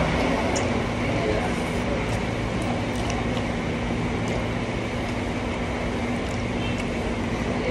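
A steady mechanical hum, with a few faint scattered clicks and squishes of food being picked up by hand and chewed.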